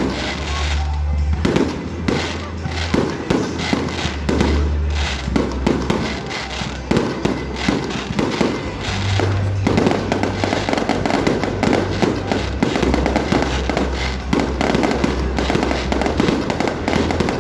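Fireworks display: shells bursting and crackling in rapid succession, getting denser about halfway through. Music with a steady bass plays along with the show.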